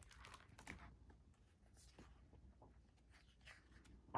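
Faint rustles and soft taps of a hardcover picture book being handled, its cover opened and paper pages shifting, with a sharper tap right at the end.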